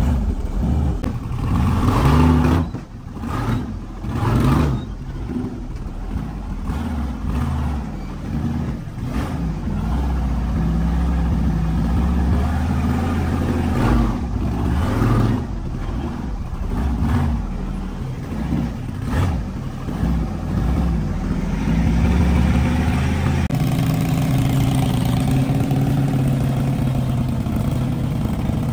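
Engine of a tube-chassis rock crawler buggy running and revving in repeated surges as it climbs rock ledges. It settles into a steadier run in the last few seconds.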